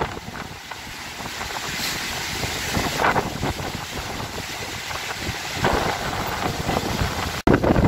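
Strong storm wind gusting and buffeting the microphone, rising and falling in waves. The sound cuts out for an instant about seven seconds in, then comes back with louder gusts.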